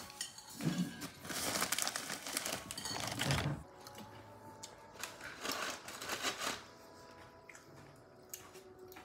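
Crinkling, rustling and light clicking of food and utensils being handled at a meal table, in two clusters of short bursts, with faint steady tones underneath.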